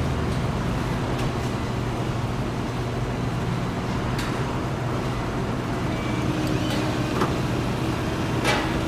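Steady hum and noise of running factory machinery, with a few short sharp knocks.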